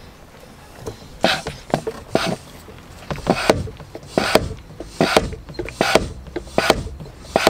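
Hand-operated vacuum oil extractor being pumped to draw the diesel engine's oil out through the dipstick tube: sharp mechanical pump strokes, often in pairs, roughly one a second, starting about a second in.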